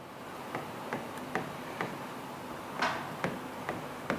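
Stylus tip tapping and sliding on the glass of an interactive display while handwriting: light clicks about twice a second, with a slightly longer scrape about three seconds in.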